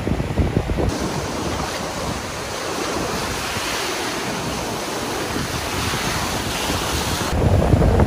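Ocean surf breaking and washing up the sand as a steady hiss, with wind buffeting the microphone. Near the end the surf hiss cuts away and a louder wind rumble takes over.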